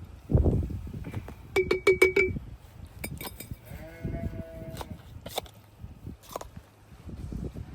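Sheep bleating twice, a short quavering bleat about a second and a half in and a longer one about four seconds in. A dull thump near the start and scattered knocks, likely from handling or footsteps among the animals.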